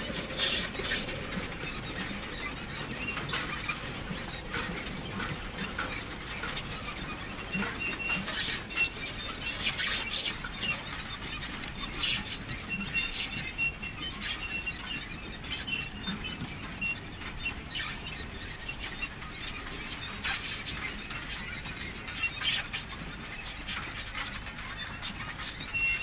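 Manure spreader running: constant mechanical clatter of its moving parts, with irregular knocks and short high squeaks.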